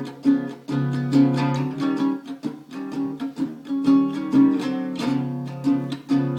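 Acoustic guitar strummed in a steady rhythm, about three strokes a second, playing chords with no voice.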